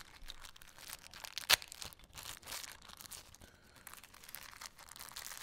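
Small clear plastic parts bag crinkling as it is handled, with one sharper click about one and a half seconds in.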